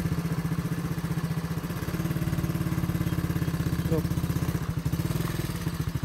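Motorcycle engine idling steadily, a rapid even low pulsing.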